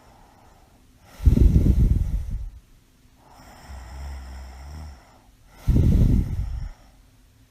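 A sleeping woman with mild sleep apnea snoring: two loud, rough, low snores about four and a half seconds apart, with a quieter breath between them.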